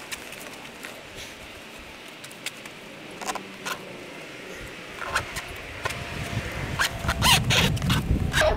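Handling noise from packing the Overland Vehicle Systems car side shower room into its fabric storage bag on the roof rack: scattered clicks, rustles and knocks. They grow busier and louder in the last few seconds, with a low rumble from about midway.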